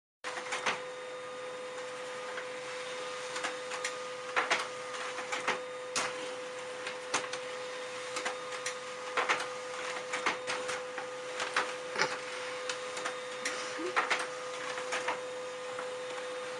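Desktop laser printer running, with a steady hum and irregular mechanical clicks and clunks as it feeds paper.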